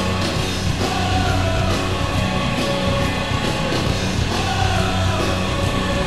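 Loud rock music with singing, the hockey goal song played after the horn.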